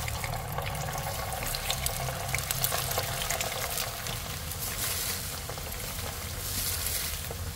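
Fish balls, fish sticks and sausage slices deep-frying in hot oil in a frying pan, freshly dropped in: a steady sizzle with many small crackles.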